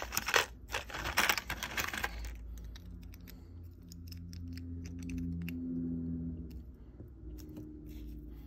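Rustling of a small cardboard box and its packaging for about the first two seconds, then scattered small clicks of plastic Lego minifigure parts being handled and pressed together, over a faint low hum.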